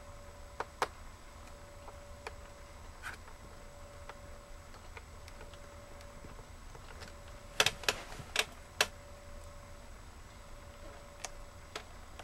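Small sharp clicks and taps of a precision screwdriver and screws against a plastic laptop screen bezel, scattered and faint, with a quick run of about five louder clicks around eight seconds in. A faint steady hum runs underneath.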